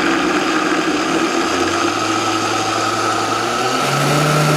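High-speed countertop blender running, blending soaked macadamia nuts and almond milk into a thick nut ricotta; its steady motor whine climbs as the speed dial is turned up, with a step up in pitch near the end.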